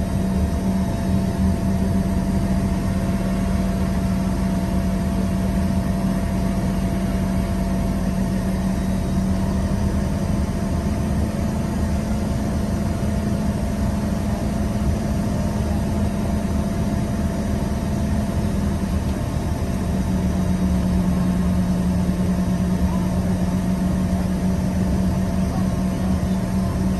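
Steady engine and airflow noise inside the cabin of an Embraer EMB145 regional jet: a low hum from its rear-mounted turbofans with a faint steady whine above it. About two-thirds of the way through, the hum shifts slightly in pitch as the engine setting changes.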